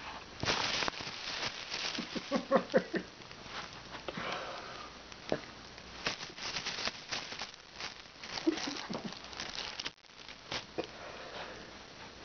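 Thin plastic shopping bag crinkling and rustling in many small irregular crackles as a cat inside it shifts and claws at the plastic to tear its way out, with a short run of pitched sounds between about two and three seconds in.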